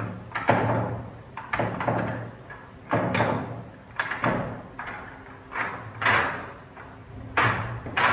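A series of sharp knocks, about seven in eight seconds at uneven intervals, each trailing off briefly.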